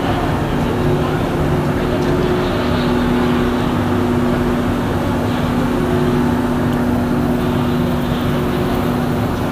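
Steady drone of running machinery, a constant low hum of held tones over a wash of mechanical noise.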